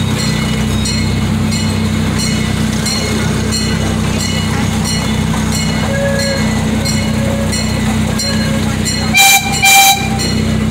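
Small amusement-park train running along its track, its engine humming steadily under light regular clicks from the wheels about twice a second. Near the end its horn gives two short toots in quick succession.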